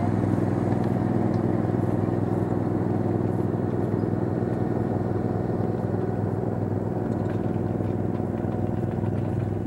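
A 1/8-scale ride-on miniature locomotive running steadily with a constant engine-like hum, hauling riding cars.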